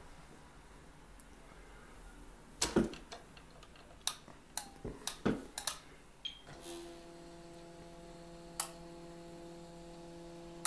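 A scattering of sharp clicks and knocks, then the model elevator's stepper motor running with a steady whine from about six and a half seconds in as it drives the car up the shaft, cutting off with a click at the end.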